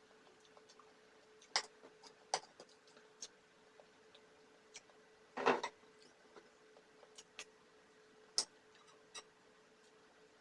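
Close-miked eating: scattered sharp clicks of chewing and utensils, with one longer, louder noise about five and a half seconds in, over a faint steady hum.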